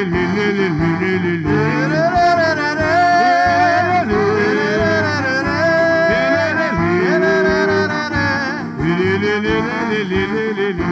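Bumba-meu-boi music: a lead melody with long sliding notes over steady drumming.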